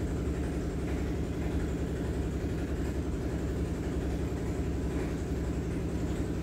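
A steady low rumble and hum like a running motor, over the faint sizzle of balls deep-frying in hot oil.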